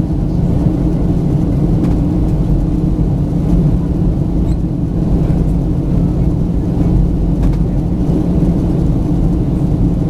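Cabin noise inside a Boeing 737-900 in flight during descent, heard beside the wing: its CFM56-7B turbofan engines and the airflow make a steady, loud low rumble with a constant hum through it.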